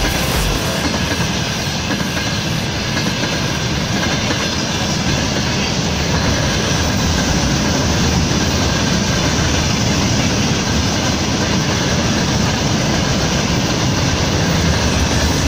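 Freight train wagons (container flatcars and open gondola cars) rolling past on steel rails, a steady, unbroken rumble of wheels and running gear.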